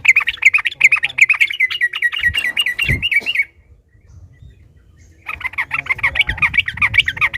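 Yellow-vented bulbul (trucukan) singing its long rapid rolling song, a fast run of repeated chattering notes. It comes in two bouts with a short pause between them.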